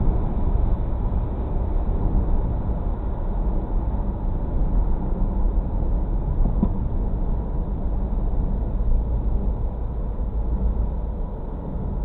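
Steady road and engine rumble of a moving car, heard from inside the cabin, with a faint click a little past halfway.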